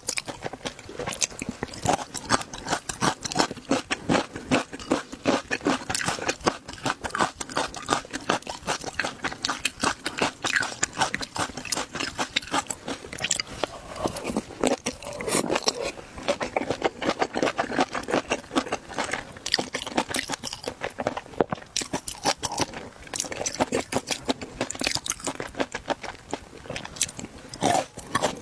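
Close-miked chewing of shrimp: continuous irregular crunching and crackling, several small crunches a second.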